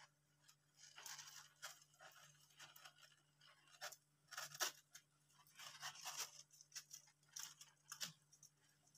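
Hamsters scratching and rustling in loose wood-shaving bedding: irregular short scratchy bursts starting about a second in, over a faint steady hum.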